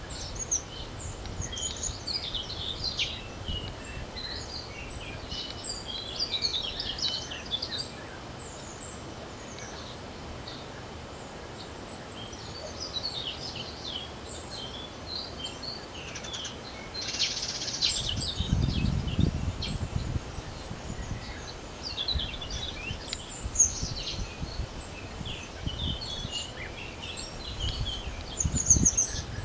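Several songbirds chirping and trilling over one another, with gusts of wind rumbling on the microphone about two-thirds of the way through and again near the end.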